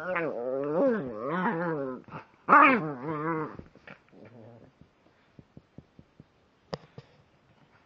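Small long-haired dog vocalizing in play: wavering, whiny growl-howls in several drawn-out stretches over the first three and a half seconds. After that only faint scattered clicks remain.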